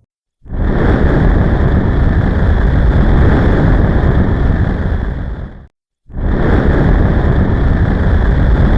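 Loud, steady rushing noise like wind or surf, cutting out briefly about five and a half seconds in and then starting again.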